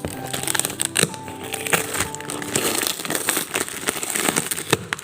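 Parcel packaging crinkling and crackling as it is handled and pulled open by hand, with many sharp little crackles. Background music plays under the first half and fades out.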